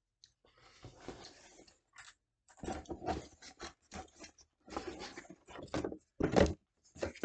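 A hand rummaging among baby food containers in a cardboard box and pulling one out: irregular rustling with clattering knocks, busier in the second half.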